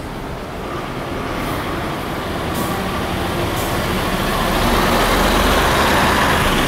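Isuzu KC-LV380N city bus's V8 diesel engine pulling away from the stop and driving past, growing louder as it goes by.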